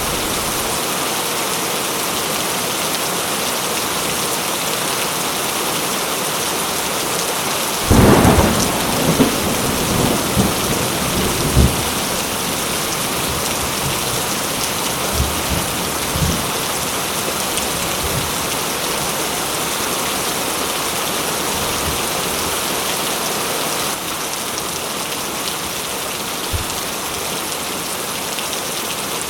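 Heavy rain falling steadily, with a clap of thunder about eight seconds in that rumbles on for a few seconds and fades into a few fainter low rolls.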